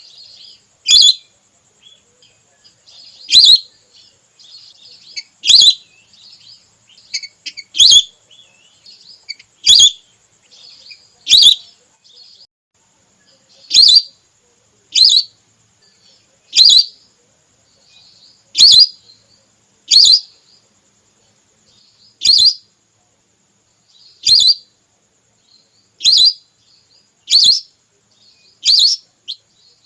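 Whistling duck (belibis) calls: sharp, high whistled notes repeated about every one to two seconds, a female call played as a hunting lure. Fainter chattering calls fill the gaps during the first half.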